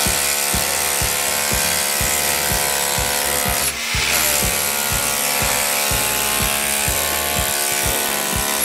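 Power drill running steadily against a brick wall. About four seconds in it is briefly let off, then spins back up to speed, its whine rising as it does.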